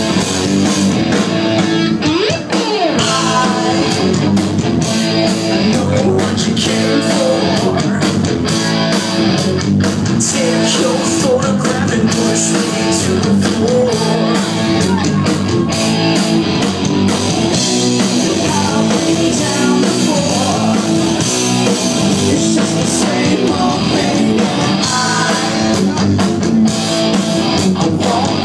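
A rock band playing live and loud: guitars, a drum kit and a singer.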